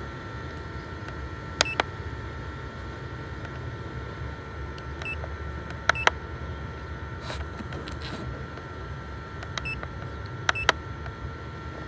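FPV drone equipment giving short electronic double beeps, one pair about every four and a half seconds, an alert pattern that goes with a database error. A steady faint electronic whine and a low rumble run underneath.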